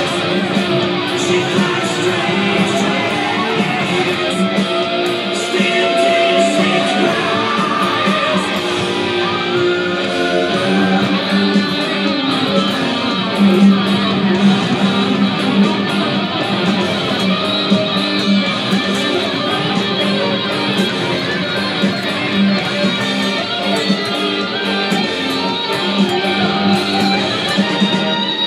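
Electric guitar lead line, partly following a rock song's parts and mostly improvised, played continuously over a full rock band track.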